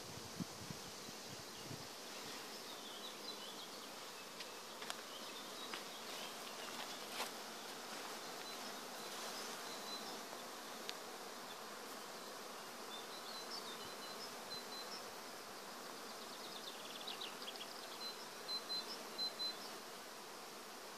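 Steady hum of many honey bees foraging on blossoming black locust (robinia) trees, with short high chirps now and then.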